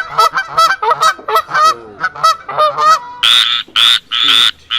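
Recorded animal calls: a quick run of short honking calls, then from about three seconds in a series of loud, harsh croaking calls about twice a second.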